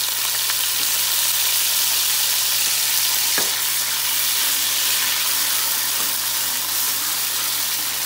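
Hot oil sizzling loudly and steadily where a splash of water has hit tomato paste frying in it, while it is stirred with a spoon. There is one short click about three and a half seconds in.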